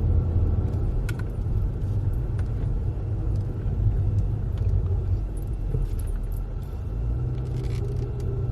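Steady low rumble of a car's engine running, heard from inside the cabin, with a few faint light clicks.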